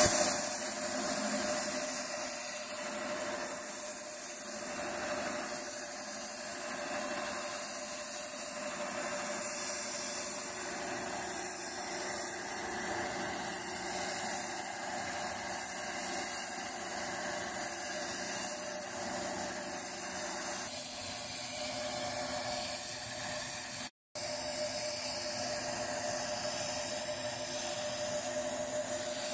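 Compressed-air gravity-feed spray gun hissing steadily as it sprays paint onto a steel cupboard door, with a steady hum beneath the hiss.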